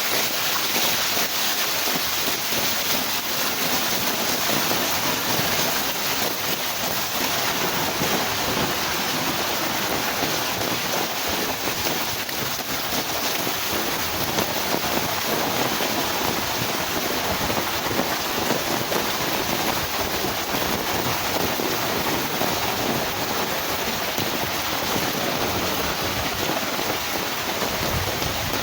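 Heavy rain falling in a strong wind, a dense, steady hiss without letup.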